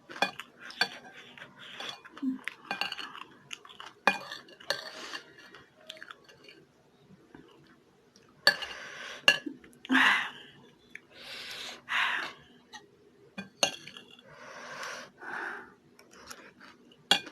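A spoon clinking and scraping against a dish while eating chatpate, a spicy puffed-rice snack: many sharp clicks mixed with short, noisy crunching bursts.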